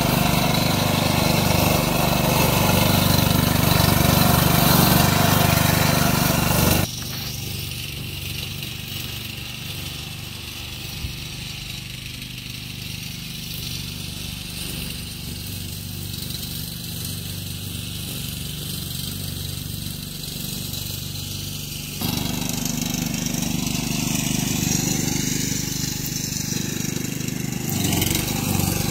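A small engine runs steadily, with a low even hum. It drops abruptly to a quieter level about seven seconds in and comes back up just as abruptly about fifteen seconds later.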